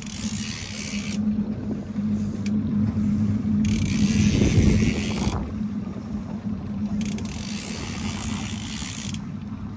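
A boat's outboard motor idles with a steady low hum. Over it, a fishing reel whirs in three spells of about two seconds each, as line is cranked in against a heavy halibut on a bent rod.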